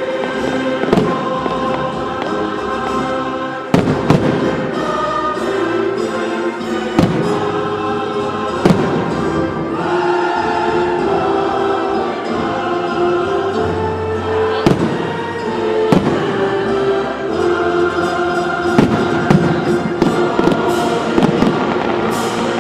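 Fireworks bursting in a finale, with several sharp bangs a few seconds apart over loud music with a choir singing.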